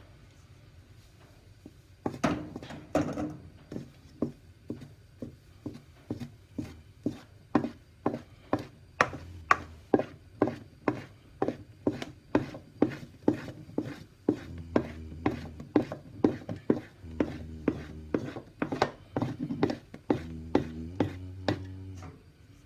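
A wooden spatula knocks and scrapes against a stainless steel mixing bowl about twice a second while folding flour into whipped egg batter. It starts about two seconds in.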